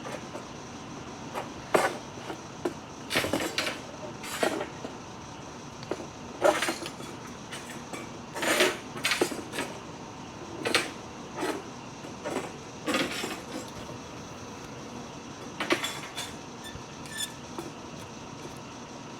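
Irregular metallic clinks and short scrapes of a brake-line flaring tool being clamped onto and worked on the end of a brake line, over a steady background hum.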